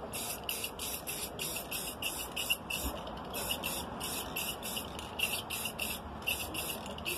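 Aerosol can of clear spray paint spitting out quick short sprays of hiss, about three a second, with a brief pause near the end. The can is nearly empty and giving its last little shots.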